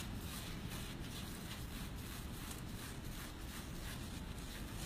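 Low room hum with faint rustling and soft ticks from hair-colour work: aluminium foils and a tint brush being handled.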